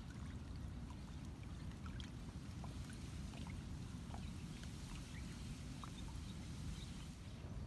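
Wet outdoor ambience after rain: a steady low noise with scattered faint ticks and drips, water dripping from the rain-soaked leaves.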